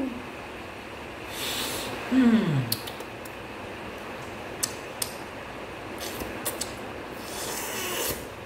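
A man sniffing a plastic model-kit runner (sprue), with two long inhales through the nose near the start and near the end. A short sigh falling in pitch follows the first sniff, and light clicks of the plastic runner being handled come in between.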